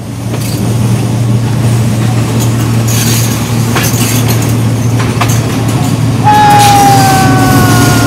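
Diesel locomotive running with a steady engine drone, heard from its open front platform, with a few clacks from the wheels on the track. About six seconds in its horn sounds, one long tone that slowly falls in pitch, as the train heads into a tunnel.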